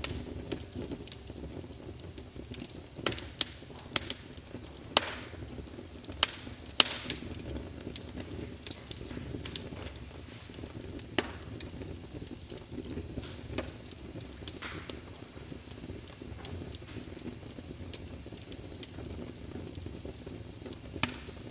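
Wood fire burning in an open hearth, crackling with irregular sharp pops over a steady low hiss. The loudest pops come between about three and seven seconds in.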